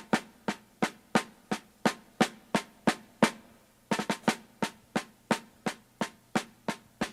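A snare drum beating a steady march cadence, sharp strokes about three a second with a few quick double strokes.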